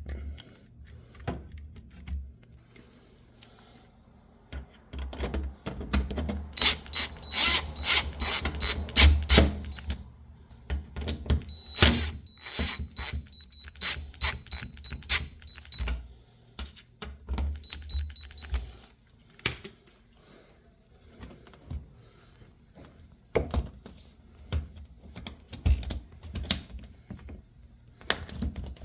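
Hand work on a front-load washing machine with tools and metal parts: a run of clicks, clinks and rattles, with bright ringing metal, busiest through the first half, then scattered knocks.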